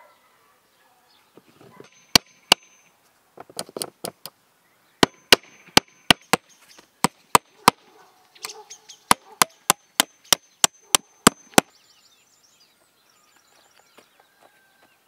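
Knife chopping on a cutting board: two strikes, then a quick, even run of sharp chops at about three to four a second that stops suddenly.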